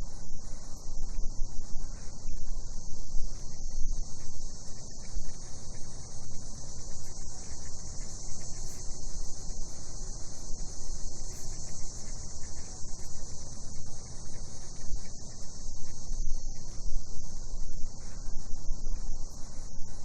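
Cicadas calling in a steady, unbroken high-pitched chorus over a constant low noise.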